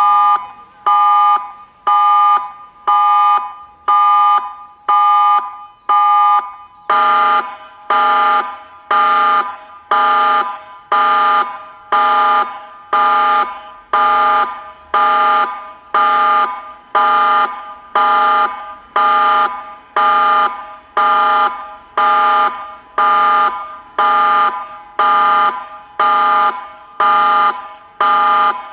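Tsunami emergency-alert alarm: a chord of steady tones beeping about once a second. About seven seconds in the tone turns fuller, with lower notes added.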